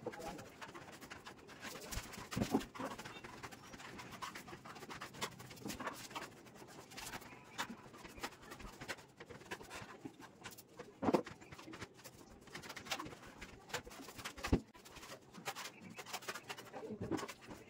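Sponge dabbing and rubbing wet decorative paint onto a wall: irregular soft scuffs and taps, with a few louder knocks.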